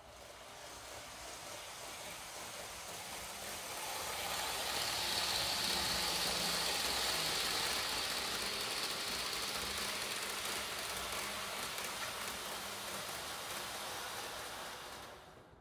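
N-gauge model train running along its track, its wheels and motor making a steady rolling whir. It grows louder as the train comes close, is loudest around the middle, and fades away near the end.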